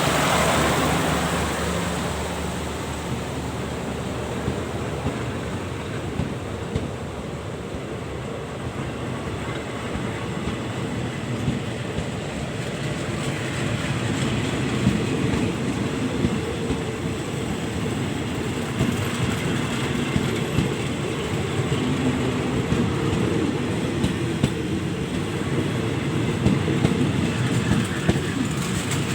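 A train rumbling along the rails at the station, its wheels clacking over the rail joints, with the clacks growing sharper and more frequent in the second half.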